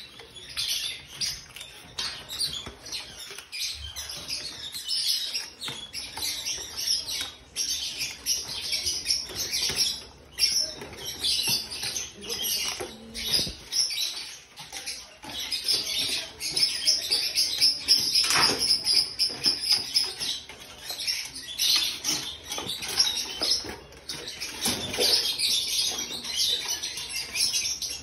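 Dogs eating home-cooked food from stainless steel bowls: a fast, continuous run of wet chewing, smacking and lapping.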